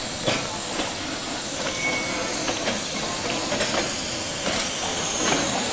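Steam locomotive W 192 hissing steadily, with irregular light clanks and knocks.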